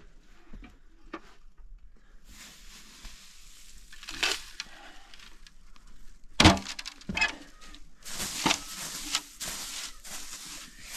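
Irregular knocks and cracks, the loudest about six and a half seconds in with another soon after, then a stretch of rustling, crackling noise from about eight seconds in.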